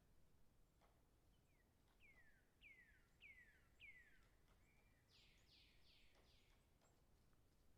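Faint, scattered taps of a woodpecker pecking at wood as it feeds, heard from a distance. About a second and a half in, a bird calls four falling whistled notes, then four more broader falling notes about five seconds in.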